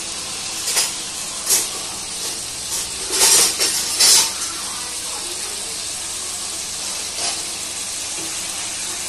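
Shallots, garlic and tomatoes sizzling in sesame oil in a kadai: a steady hiss, with a few louder spells of spitting in the first four seconds or so.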